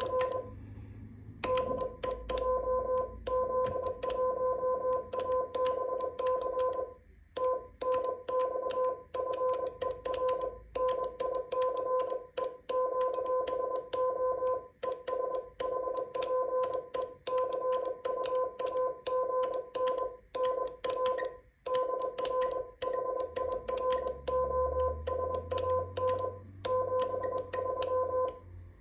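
Morse code sent with a small wooden paddle key: a single steady mid-pitched sidetone beeping on and off in dots and dashes, with the paddle levers clicking at each stroke. It starts about a second and a half in, with short breaks between words, and spells out the closing of a contact, "R TNX FER NICE QSO" and "73".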